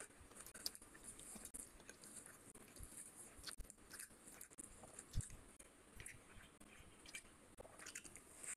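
Faint close-miked eating sounds: wet chewing and mouth smacks, with a hand squishing rice into fish curry on the plate.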